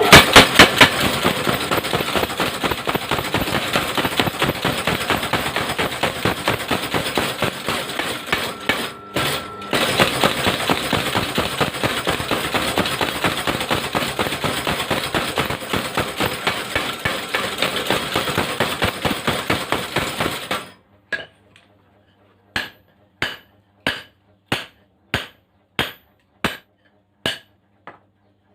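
Mechanical forging hammer pounding metal in a fast, steady stream of blows, with a brief pause near the middle. About two-thirds through it stops, and separate ringing metal-on-metal strikes follow at about one and a half per second.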